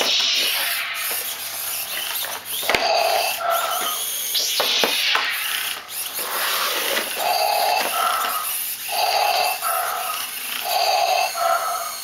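Darth Vader breathing sound effect played from a sumo robot's small speaker: a two-part in-and-out breath repeating every second or two. Bursts of hiss near the start and about four seconds in, with a few sharp clicks.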